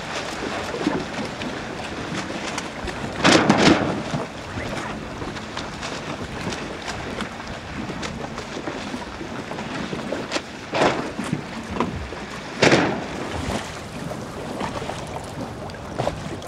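Wind and choppy water splashing around windsurf boards sailing close by, with louder rushes of splash and wind about three and a half, eleven and thirteen seconds in.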